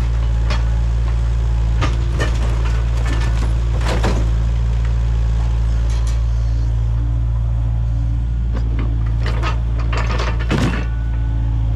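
Kubota KX057-5 mini excavator's diesel engine running steadily as the boom and grapple move, with several sharp knocks and cracks from the wreckage.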